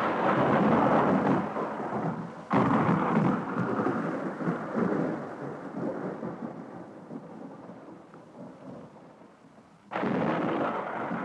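Thunder rumbling: one clap is already rolling at the start, a second breaks sharply about two and a half seconds in and rolls away slowly over several seconds, and a third breaks near the end.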